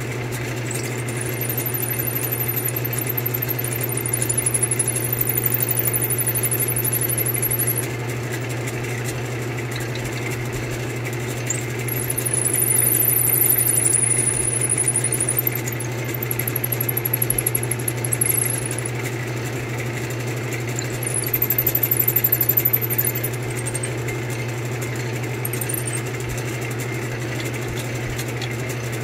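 Wood lathe running with a steady hum, turning a long drill bit in its headstock chuck. Four times a turned wooden chair spindle is fed onto the bit, each time bringing a high whine as the bit bores lengthwise into the wood.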